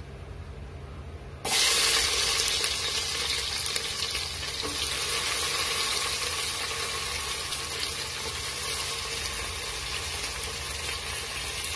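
Whole spices frying in hot ghee and oil with a faint sizzle. About a second and a half in, sliced onions go into the hot fat and set off a sudden loud sizzle, which settles into a steady frying hiss.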